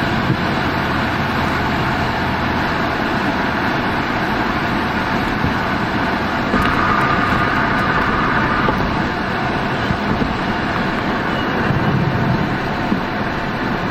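Steady road and engine noise heard from inside a car cruising on a highway, swelling slightly about halfway through.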